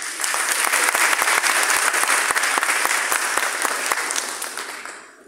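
Audience and people on stage applauding: dense clapping that starts at once, holds steady, then dies away near the end.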